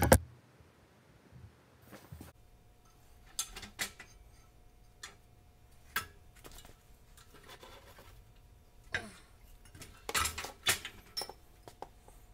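Scattered metallic clanks and clicks from a hand-operated Central Machinery sheet-metal brake being clamped and worked and small bent metal strips being handled, over a faint steady hum. The loudest cluster of clanks comes about ten seconds in.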